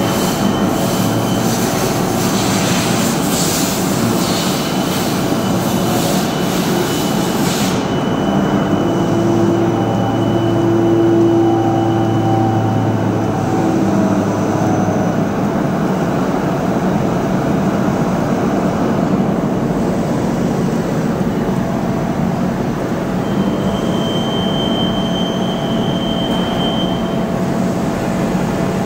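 Doosan Puma MX2500 CNC turn-mill centre running: a steady machine drone with whining tones that shift and come and go. A high hiss cuts off suddenly about eight seconds in.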